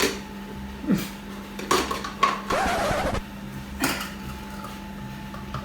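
Kitchen clatter while measuring flour: a measuring cup and utensils knock against a mixing bowl several times. Near the middle comes a rustling, scraping noise lasting just under a second.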